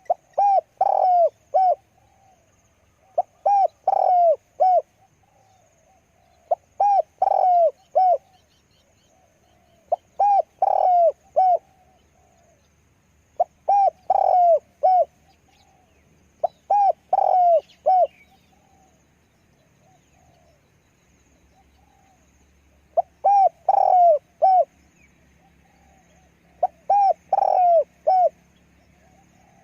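Spotted dove cooing close by, singing its short rolling phrase of several notes every three to four seconds, with one longer pause about halfway through.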